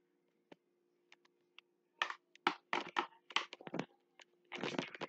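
Handling and movement noise: a quick run of short scuffs and rubs, about four a second, from two to four seconds in, then a denser rustle near the end, over a faint steady hum.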